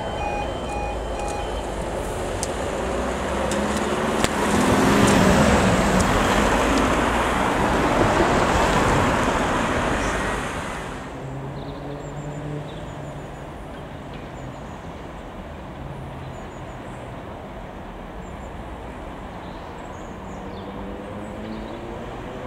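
Train passing through the station: a loud rush of wheel and engine noise that swells to its loudest about five seconds in and dies away about eleven seconds in, leaving a quieter steady low diesel hum. A pulsing electronic tone stops about a second and a half in.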